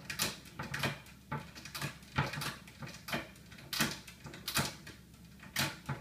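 Kitchen trash-cabinet door clacking and rattling against its childproof latch in an irregular series of sharp knocks, about two or three a second, as a dog works at the lock to get it open.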